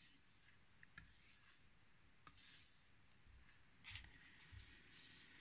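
Faint scraping of a knife blade drawn across a wet natural whetstone with slurry on it: a few soft, separate strokes with near silence between.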